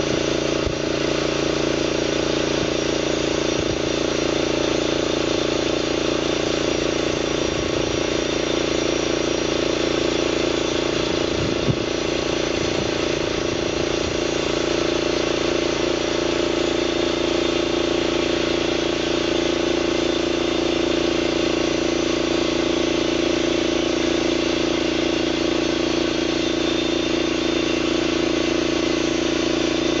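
Homemade bandsaw mill cutting a board off a squared log, its engine running steadily under load with the band blade running through the wood.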